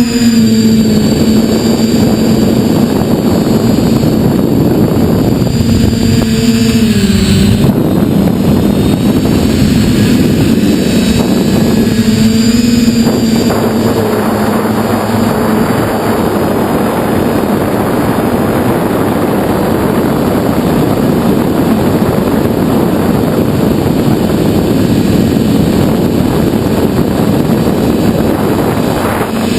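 TBS Discovery quadcopter's brushless motors and propellers humming steadily in flight, with a thin high whine above. The pitch dips briefly twice, about seven and twelve seconds in, as the throttle changes. From about halfway a broad rushing noise covers most of the hum.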